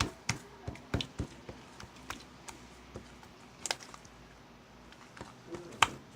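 Slime being squished and pressed by hand, making irregular sharp clicks and sticky pops, with one louder pop near the end.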